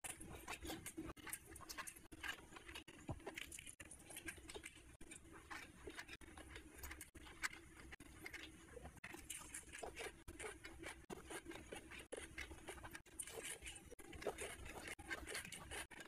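Hand-eating sounds: fingers squishing and mixing rice with curry on a plate, and wet chewing, heard as a steady run of small clicks and smacks.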